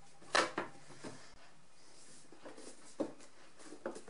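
Light knocks and clicks from the casing of a Uher 724 Stereo reel-to-reel tape recorder being handled and pressed into place as its housing is refitted. There is a sharp knock about half a second in and a few fainter ticks around three and four seconds.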